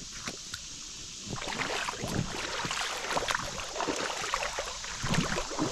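Footsteps wading through shallow creek water, splashing and sloshing irregularly, getting busier about a second in.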